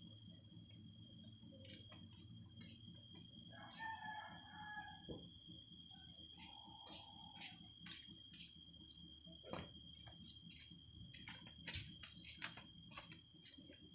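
Wood fire crackling in a wood-burning stove, with irregular sharp pops. A chicken calls twice in the background, about four and six and a half seconds in, over a steady high-pitched insect drone.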